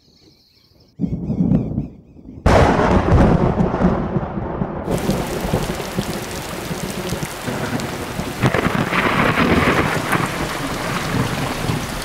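A thunderstorm: a low rumble of thunder about a second in, then a sudden loud burst of thunder and heavy rain pouring down steadily, swelling again later.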